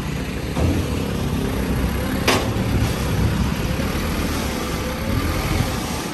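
Toyota forklift running under load, a steady low engine rumble that grows slightly louder, with a single sharp clank about two seconds in.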